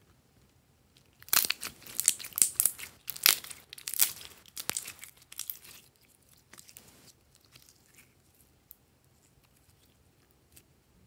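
Gold glitter slime being stretched and squeezed by hand, giving a dense run of sticky crackling pops that starts about a second in and fades out a little past halfway.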